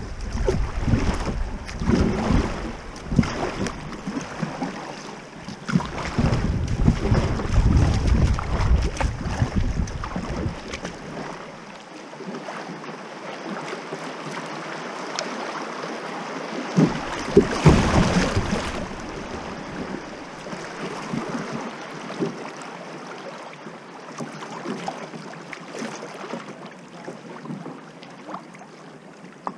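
Wind buffeting the microphone of a bow-mounted camera on a kayak, in gusts through the first ten seconds or so and again briefly past the middle, over the steady rush and splash of shallow river water rippling past the hull.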